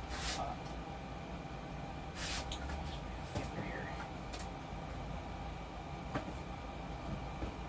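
Objects being handled and moved: a few short rustles and knocks, near the start, about two seconds in and about four and a half seconds in, over a steady low hum.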